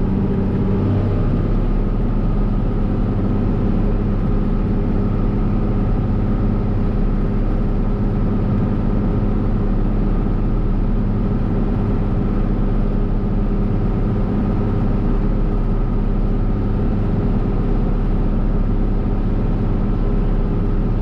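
Combine harvester's diesel engine running steadily, a constant low drone with a hum.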